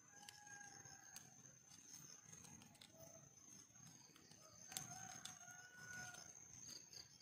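Quiet forest background: a steady high insect whine and a few short, distant bird calls, with faint clicks and rustles of hands wrapping a grass strip around a bundle of sticks. The sharpest click comes about two-thirds of the way in.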